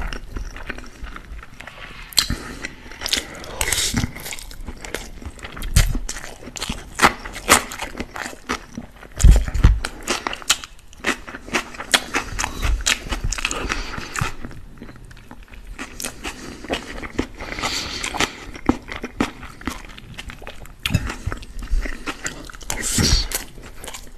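Close-miked chewing and wet mouth sounds of eating spiced rice, with a metal spoon scraping and clicking against a glass bowl as it scoops. Irregular crackly clicks throughout, with a few soft low thumps.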